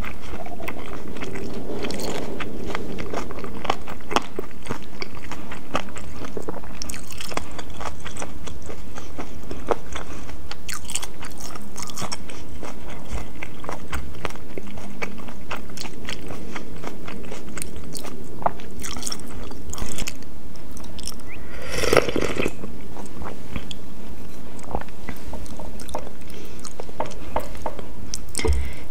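Close-up chewing of food from a bowl of noodles, chicken and snow fungus: a mouth working a full mouthful, with many short clicks and one louder, longer mouth noise about three-quarters of the way through.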